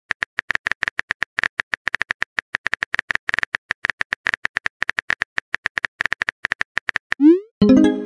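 Phone on-screen keyboard typing clicks, rapid taps at about nine a second. Near the end a quick rising swoop and a short chime sound as the message is sent.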